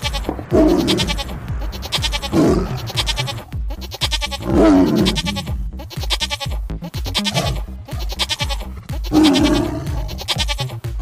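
Sheep bleating about four times over electronic music with a steady beat.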